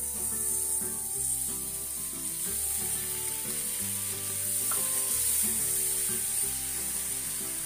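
Water hitting whole wheat flour roasted in hot ghee in a frying pan, sizzling in a steady hiss: the water is added to the roasted atta for kada prasad. Soft background music plays underneath.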